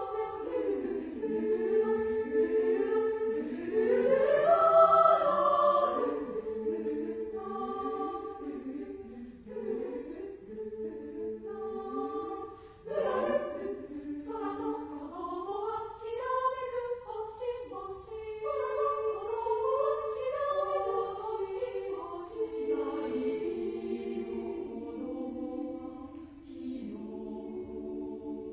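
Women's choir singing in several parts, with voices sliding in pitch and crossing one another. The singing is loudest about four to six seconds in.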